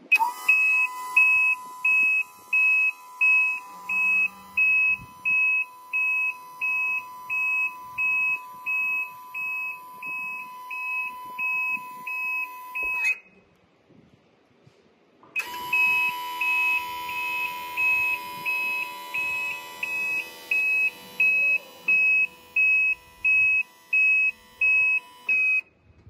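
Electronic warning buzzer of a Nipro UZE300-1S remote-controlled levee plastering machine beeping rapidly, about three beeps every two seconds, over a steady tone, as the remote's buttons are worked. It stops for about two seconds halfway through, then starts again.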